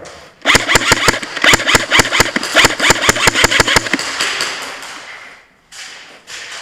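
Airsoft gun firing a rapid string of shots, about six or seven a second, for roughly three and a half seconds.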